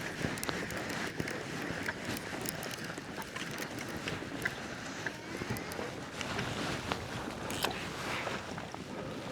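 Water and wind noise around a kayak on the ocean, with frequent small clicks and knocks of gear being handled.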